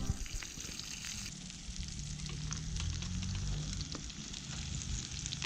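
Sausages and fish frying in a pan: a steady sizzle with scattered small pops and crackles, over a low steady hum.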